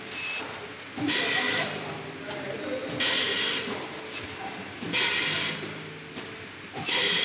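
Automatic triangle nylon tea bag packing machine running, with a sharp hiss of air about every two seconds, four times, each about half a second long, over a steady mechanical clatter: the machine's working cycle.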